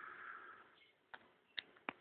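German shepherd puppies scuffling on a hard floor: a soft hiss in the first half-second, then three short sharp clicks of claws tapping the floor in the second half.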